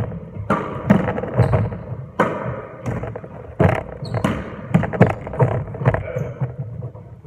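Rubber-soled court shoes thudding and squeaking on a wooden squash court floor as players lunge and push off, about a dozen irregular sharp footfalls.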